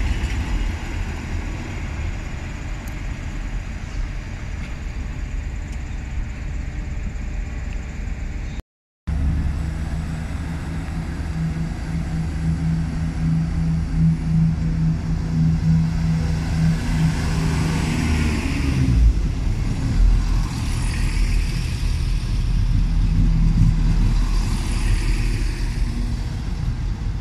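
Diesel multiple-unit trains idling at a station platform: first a Transport for Wales unit, then, after an abrupt cut, a CrossCountry Class 170 Turbostar with a steady engine hum. Around two-thirds through, the Turbostar's engine note deepens and gets a little louder.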